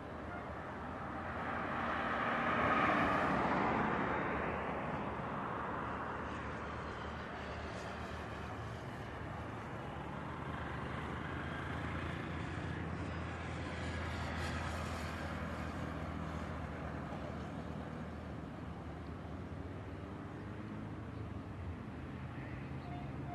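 A car drives past close by, rising and fading about three seconds in, over the steady distant hum of Airbus A320 jet engines at taxi power.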